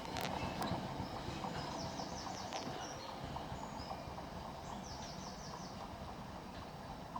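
A slow-moving train running away from the level crossing, its rumble fading, with a few sharp wheel clicks on the track in the first second. A small bird sings a quick run of high chirps about two seconds in and again about five seconds in.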